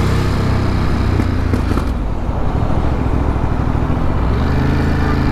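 Ducati Monster's L-twin engine running at low speed in city traffic, mixed with road and wind noise. A steadier, even engine note settles in about four seconds in.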